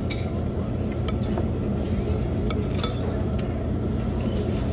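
A handful of light clinks of a metal fork and cutlery against dishes, over a steady low rumble of restaurant background noise.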